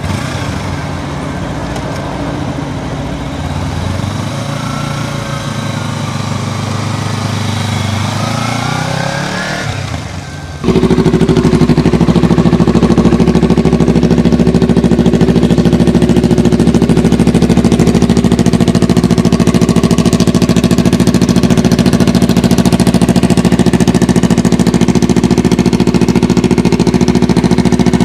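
Kawasaki Ninja 300 parallel-twin engine running through a Two Brothers aftermarket exhaust. For about the first ten seconds it is quieter, its pitch slowly rising. Then it cuts abruptly to a much louder, steady running note.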